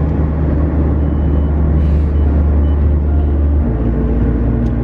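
Car cabin rumble from the engine and road: a steady, loud low drone that shifts about three and a half seconds in.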